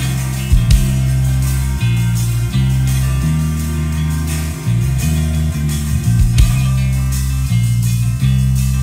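Rock band music with guitars: a heavy bass line of held low notes that change pitch about once a second, with guitar chords above.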